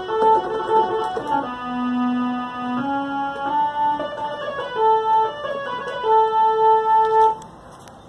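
Electronic instrument notes played from a MIDI keyboard controller: a short tune of repeated notes sounded in octaves, with a lower note held for about a second near two seconds in. The notes stop abruptly about seven seconds in.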